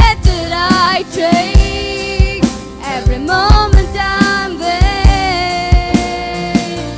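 Worship music: a vocalist singing a melody over a band with a drum kit keeping a steady beat.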